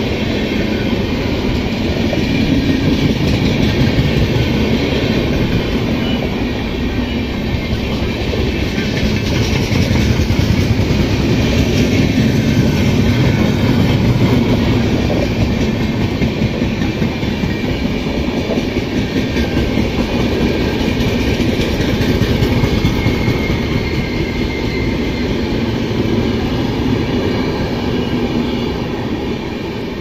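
Indian Railways passenger train's coaches passing close by: a steady, loud rumble and clatter of wheels on the rails.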